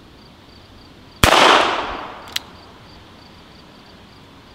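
A single shot from an Uberti Cattleman .22 LR single-action revolver about a second in, with a short echoing tail. About a second later comes one brief sharp click.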